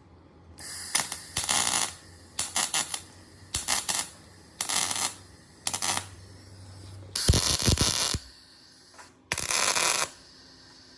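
Workshop tool noise coming in about ten short, sharp bursts, each under a second, with quieter gaps and a low hum between them.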